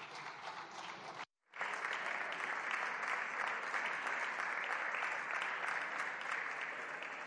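Applause from many deputies in a large parliamentary chamber, starting sharply after a brief silent gap about a second and a half in, then slowly fading toward the end.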